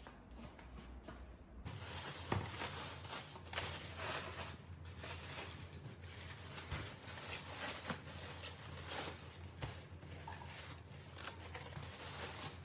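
Faint handling noises in a small room: irregular light taps, clicks and rustles over a low steady hum, starting after a brief near-silence about two seconds in.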